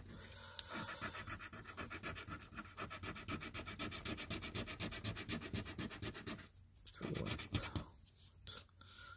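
Coin scraping the scratch-off coating of a lottery scratch card in fast, even back-and-forth strokes, with a brief pause about six and a half seconds in before a few more strokes near the end.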